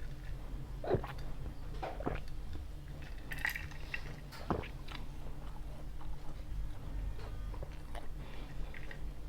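Close-up chewing and biting of pizza, with a few short crunchy clicks, over a steady low hum.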